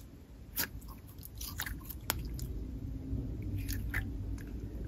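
Hands squishing and folding a stiff, overactivated putty-like cherry slime, giving scattered sticky clicks and small pops.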